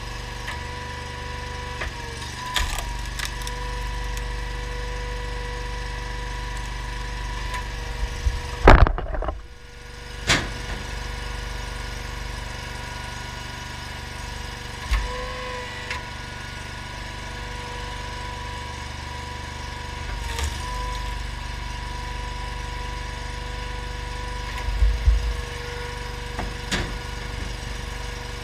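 Honda GX690 V-twin engine and the hydraulic pump of a homemade log splitter running steadily, the pitch sagging briefly three times as the splitter takes load. Sharp cracks and knocks of wood, loudest about nine seconds in and again near the end.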